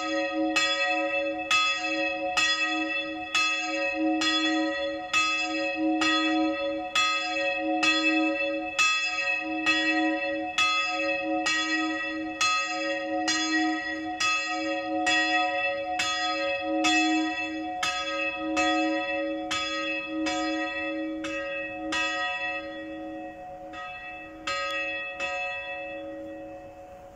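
Church bell ringing the midday peal, struck about twice a second with a steady ringing hum. Near the end the strokes falter and stop as the bell swings to rest, and the hum dies away.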